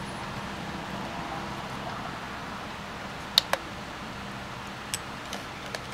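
Two sharp clicks in quick succession about three and a half seconds in, and a fainter one near five seconds, from multimeter test probes being handled at a solar charge controller's terminals. Under them is a steady hiss with a faint low hum.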